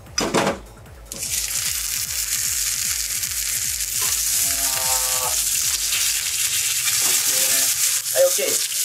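A block of low-temperature-cooked beef round sizzling loudly in hot oil in a frying pan, starting about a second in as it is laid in and seared over high heat.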